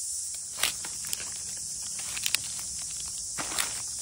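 Bare feet stepping through dry leaf litter, dead fern fronds and sticks, giving irregular crackles and snaps at a slow walking pace. A steady high hiss runs underneath.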